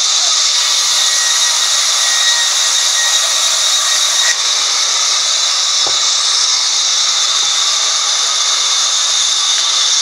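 Sawmill band saw cutting through a red-wood log: a steady, high-pitched whirring hiss that holds level, with a faint click about six seconds in.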